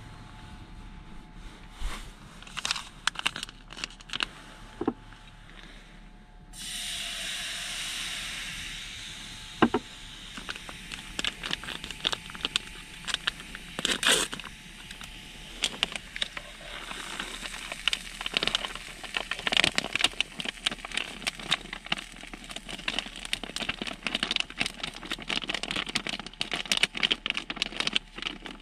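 Portable gas camping stove's burner lit about six seconds in and hissing steadily. Over it, a plastic rice pouch is crinkled and torn open, and the rice is shaken out into a frying pan near the end.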